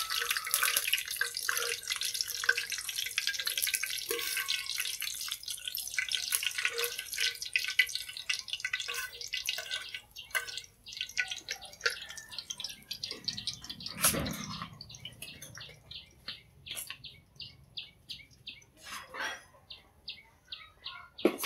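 Hot oil sizzling and crackling in a wok as pieces of fried tofu are lifted out with a metal skimmer, the sizzle fading about halfway through. Near the end, short high chirps repeat about twice a second.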